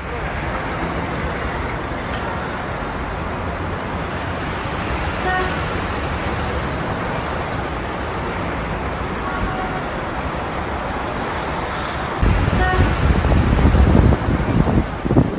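City street ambience: steady distant traffic noise with a few brief high tones. From about three-quarters of the way through, wind buffets the microphone in heavy low gusts that are louder than the traffic.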